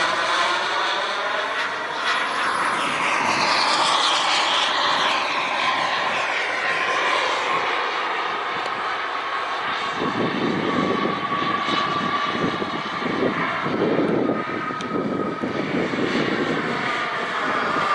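Skymaster T-38 Talon RC model jet flying past, its engine noise swelling and fading with sweeping shifts in pitch as it passes, with some wind buffeting midway.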